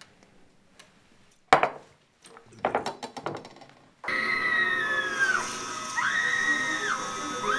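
Drinking glasses set down on a wooden cutting board and counter: one sharp knock, then a short clatter. About four seconds in, horror-film soundtrack music starts abruptly, with high sliding whistle-like tones.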